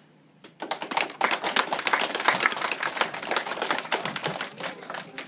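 Audience applauding, starting suddenly about half a second in and thinning out near the end.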